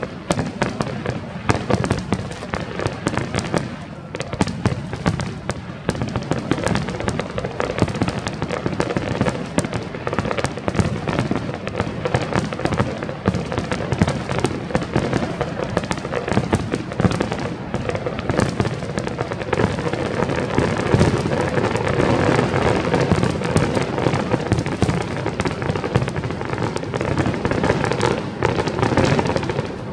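Aerial fireworks display: a rapid, continuous barrage of bangs and crackling bursts, growing denser and louder in the last third.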